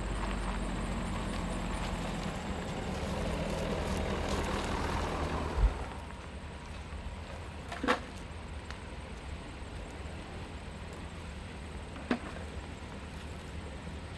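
A vehicle engine running steadily and swelling a little, then cutting off with a sharp thump about halfway through; two sharp knocks follow over quieter background.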